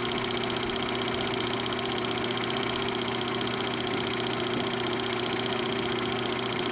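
Film projector running: a rapid, even mechanical clatter over a steady motor hum.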